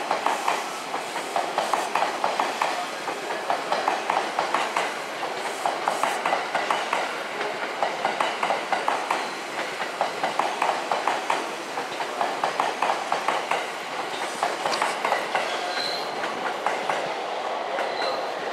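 JR East E657 series electric train departing, its cars rolling past with the wheels clacking over the rail joints in repeated groups of sharp clicks over a steady running noise. A couple of short high squeals near the end.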